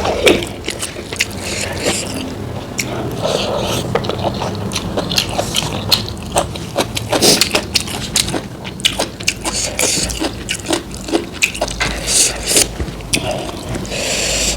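Close-miked eating sounds: a person chewing and biting food, with many short crunches and wet mouth clicks.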